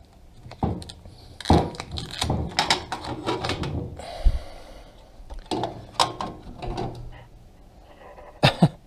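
Aluminium spirit level handled and set against a welded steel upright and its plates, with a string of clicks and knocks of metal against metal and two sharp knocks near the end.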